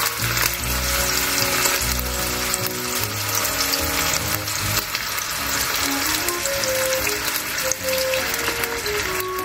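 Chicken thigh sizzling steadily as it fries skin-side down in oil in a nonstick frying pan, with background music.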